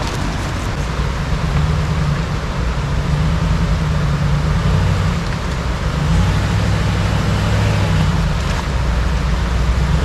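Dodge Power Wagon truck engine running at low speed while crawling a rocky off-road trail, a steady low rumble that grows a little louder about six seconds in.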